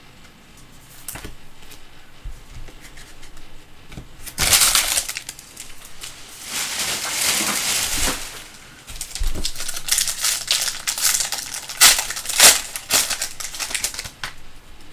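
Foil trading-card pack wrapper crinkling and crackling as it is torn open and crumpled, in two long stretches starting about four seconds in.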